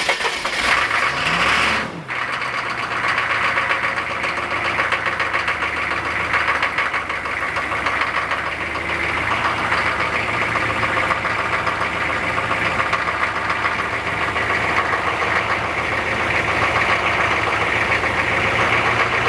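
Turbo-diesel V8 of a Suburban cold-started without glow plugs: the starter cranks, the engine catches about two seconds in, and it then idles steadily with diesel knock.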